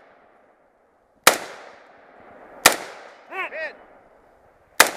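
Three rifle shots from an AR-style rifle fired slowly from a rest, about a second and a half and then two seconds apart, each with a short fading echo. About half a second after the second shot come two short pitched rings.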